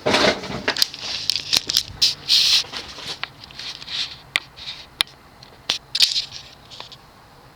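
Irregular clicks and short rustling noises close to the microphone, over the faint steady low hum of a Casablanca Silhouette hugger ceiling fan's spinner motor running on low speed.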